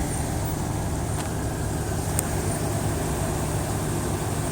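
Car engine idling with a steady low hum, with a couple of faint ticks about one and two seconds in.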